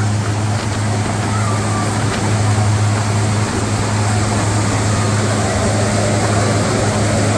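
Loud steady machine hum with an even rushing noise over it, running without change; a faint high voice is heard briefly near the start.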